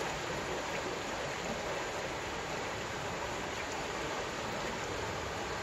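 River water running fast past rocks: a steady, even rush of flowing water.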